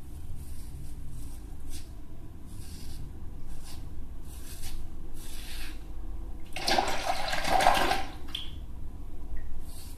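Cartridge razor scraping upward through shaving foam and beard stubble in short strokes, about one a second. Near the end comes a loud rush of water lasting about a second and a half.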